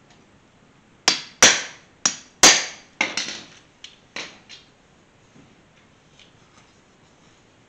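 Flat-tip body hammer tapping a dent out of a thin, soft-metal truck trim strip laid on a soft wood block: about ten sharp taps, each with a short metallic ring, over some three and a half seconds, the hardest ones near the start, then the tapping stops.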